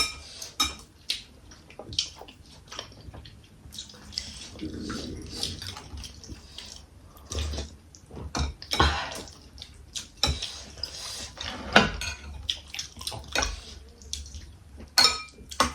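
Close-up eating sounds of momos being eaten: irregular wet mouth smacks and chewing, with now and then a light clink of dishes.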